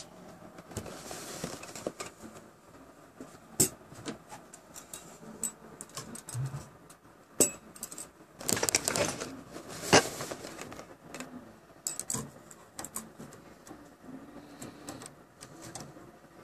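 Scattered light clicks, taps and short scrapes from a digital caliper being handled and fitted against the printer's bed and clamps, with a longer rustling scrape about eight to nine seconds in and a sharp click just after.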